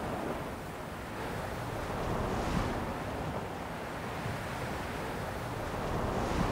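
Ocean surf washing onto a sandy beach: a steady rush of water, with a wave breaking and swelling louder about two and a half seconds in and again near the end.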